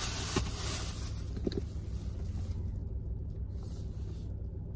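Car engine idling as a steady low hum heard inside the cabin, with light rustling of a paper notebook being handled, mostly in the first half.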